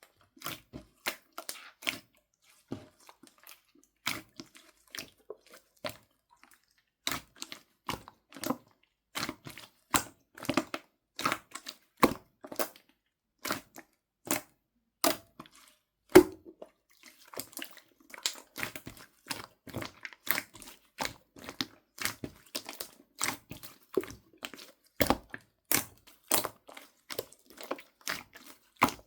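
Slime being squeezed and pressed by hand, giving a run of sharp, irregular popping clicks that come faster in the second half.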